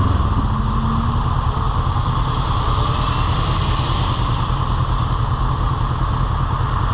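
Motorcycle under way, its engine and road noise running steadily with no revving.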